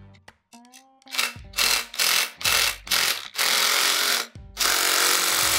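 Hand ratchet wrench being cranked in about seven quick strokes, each a run of rapid clicking, the last two longer, as the exhaust header bolts are tightened. Background music with a low beat plays underneath.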